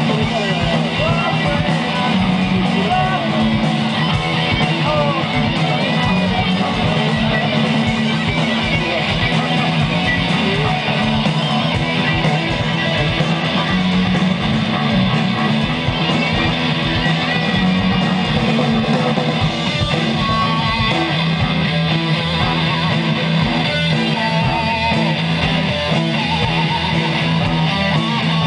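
Rock band playing live and loud: electric guitars, bass guitar and drum kit, with steady drum strikes driving the beat.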